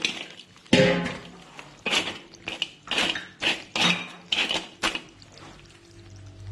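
Crab shells knocking against an iron wok as the crabs are laid in by hand: a run of about ten sharp knocks, roughly two a second.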